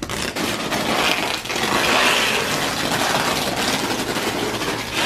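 Duct tape being pulled off the roll in long strips and wrapped around a person, a continuous fast crackling rip.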